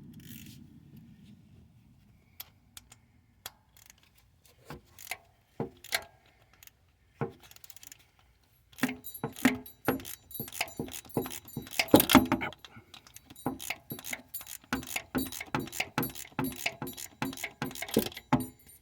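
Hand ratchet clicking as a snug bolt on a Chevy Express engine is worked loose. Scattered clicks at first, then steady rapid clicking from about nine seconds in.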